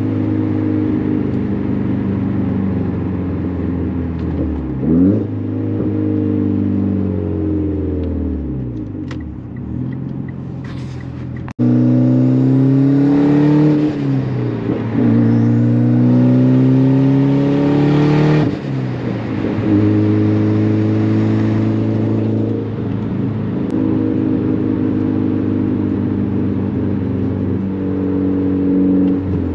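Mitsubishi Lancer Evolution X's turbocharged 2.0-litre four-cylinder, with full titanium exhaust and open dump, heard from inside the cabin while driving. It runs at part throttle with rev changes at first, then turns abruptly louder about a third of the way in. It accelerates hard, pitch climbing and dropping at each of two gear changes, before settling to steadier running.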